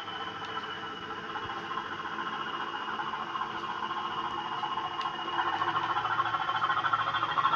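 Sound-fitted Bachmann Class 20 model locomotive running on its track, its DCC sound decoder playing the diesel engine sound over the motor and wheel noise. A high whine dips slightly and then rises, and the whole sound grows steadily louder as the loco comes closer.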